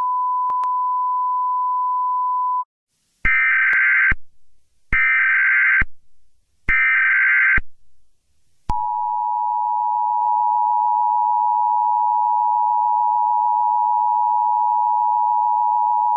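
A steady test-pattern tone that cuts off about two and a half seconds in, then three short bursts of an emergency-alert digital data header, each under a second, followed by the steady two-tone Emergency Alert System attention signal.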